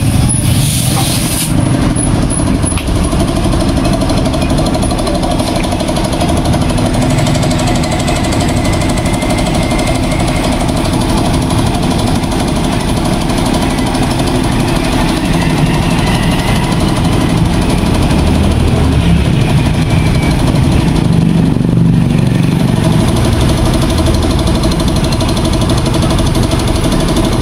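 An engine or motor running steadily with a low hum.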